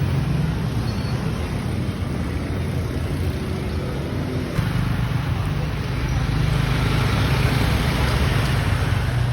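Engine hum with traffic noise, steady throughout and a little louder in the second half.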